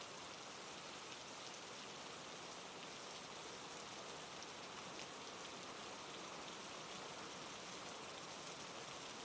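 Steady, gentle rainfall, a soft even hiss of drops on a surface.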